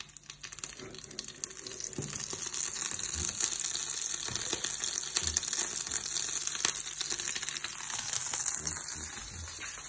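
Food sizzling in a hot frying pan: a steady hiss with small crackles that builds over the first few seconds and eases off near the end.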